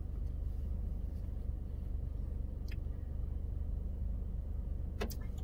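Steady low hum of an idling car engine heard from inside the cabin, with a faint click partway through and a short sharp noise near the end.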